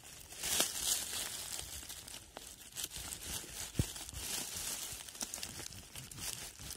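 Dry fallen leaves and twigs crackling and rustling as a hand works around a mushroom on the forest floor, with scattered small snaps and one dull thump a little past the middle.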